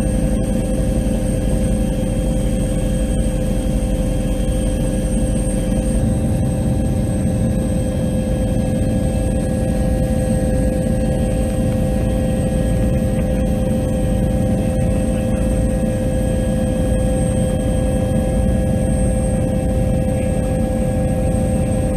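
Helicopter cabin noise in flight: a steady turbine whine of several high, constant tones over a continuous low rotor and engine rumble.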